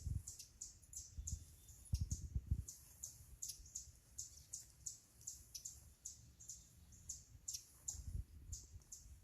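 A flock of small songbirds chirping, short high calls repeated two or three times a second, with a few low dull thumps now and then.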